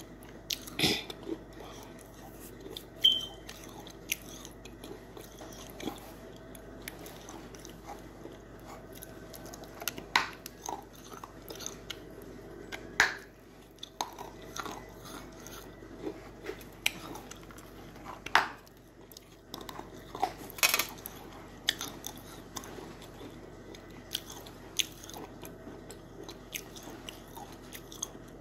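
Chunk of cornstarch being bitten and chewed close to the microphone: irregular soft crunches and crackles, with a few sharper crunches among them.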